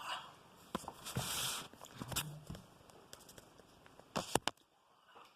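Someone eating a yogurt: scattered clicks and short scraping noises, with a brief hiss about a second in and a pair of sharp clicks a little after four seconds.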